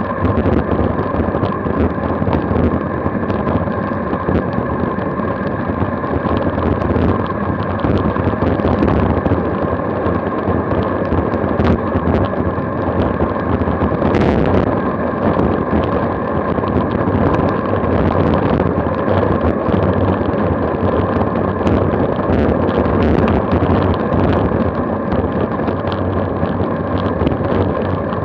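Wind rushing and buffeting over a Garmin VIRB action camera's microphone on a bicycle descending at about 40 mph, with a faint steady whine underneath and scattered light clicks. A sharper knock comes about fourteen seconds in as the wheel crosses cracked, patched pavement.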